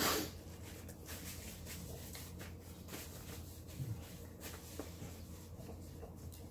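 Paper napkin rustling and small handling clicks at a table, opening with a short loud rush of noise, over a low steady hum.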